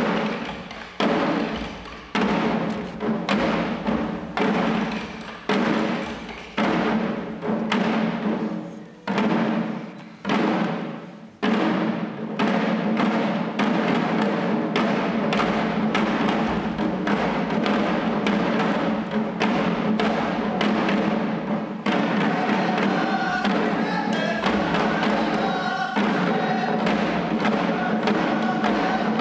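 Shishi-odori deer-dance drums, the dancers' chest-slung taiko, beaten in heavy single strokes about once a second, then from about twelve seconds in a dense, steady drumming.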